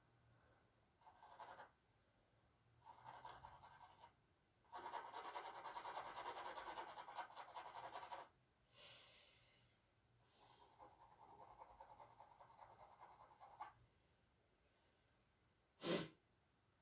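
Charcoal stick scratching across canvas in a series of drawing strokes, each lasting a second or more, the longest about three seconds. A single sharp tap sounds near the end.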